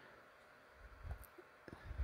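Near silence: quiet room tone, with a few faint soft low sounds and thin clicks in the second half.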